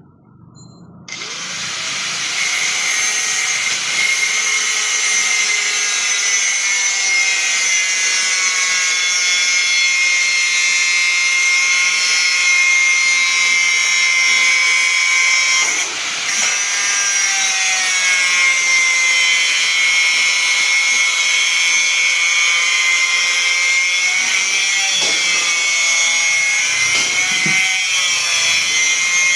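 Electric power tool working wood: it starts about a second in and runs on with a steady high whine, with one brief dip near the middle.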